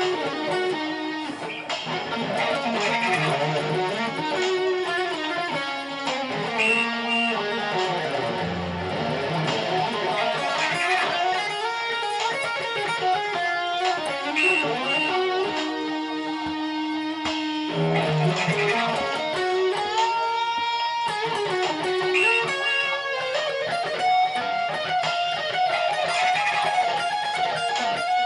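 Electric guitar playing an improvised solo, with long held notes and string bends that slide the pitch up and down.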